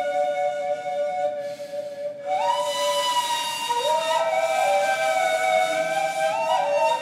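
Two neys, end-blown reed flutes, playing a slow improvised duet in long held notes at the same time. A little over two seconds in, one line slides up to a higher note with more breath in the tone, and the other line steps up a few times later on.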